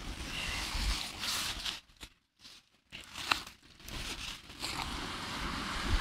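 Wind buffeting the microphone and rustling of a waterproof jacket as a beach-casting rod and its multiplier reel are handled. The sound drops almost to silence for about a second near the middle, and a single sharp click follows shortly after.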